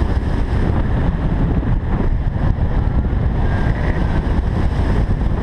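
Strong wind rushing and buffeting over the microphone of a hang glider in flight, a steady low rumble.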